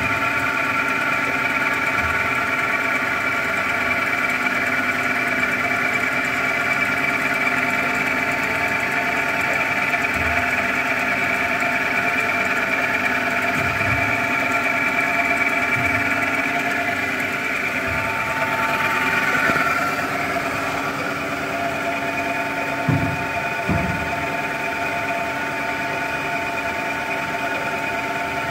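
Bomar STG 260 GA automatic metal-cutting band saw running, its drive and blade giving a steady whine of several tones. About twenty seconds in the sound shifts and eases a little, and two dull thumps follow a few seconds later.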